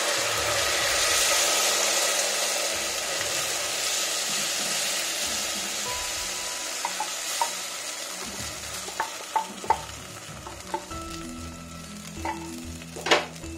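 Rice-and-jaggery batter being poured into hot coconut oil in an aluminium pressure cooker, sizzling steadily. The sizzle is loudest in the first couple of seconds and slowly dies down as the batter fills the pan. Scattered light taps come in the second half.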